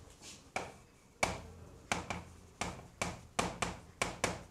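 Chalk writing on a chalkboard: about ten sharp, irregularly spaced taps as each stroke of the chalk hits the board.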